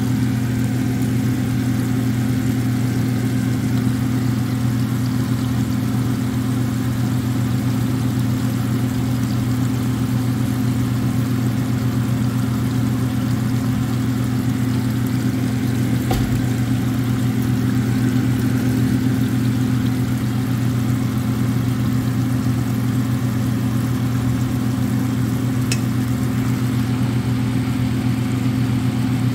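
Steady low electrical hum from a kitchen appliance, with two faint clicks, one about halfway through and one near the end.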